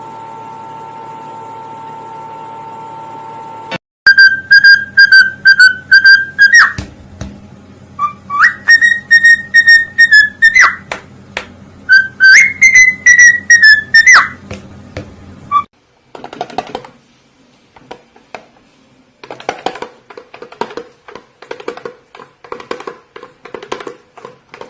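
A parrot whistling three long, warbling notes of two to three seconds each, the later ones gliding up at their start. They come after a steady hum of about four seconds and are followed by a run of faint clicks.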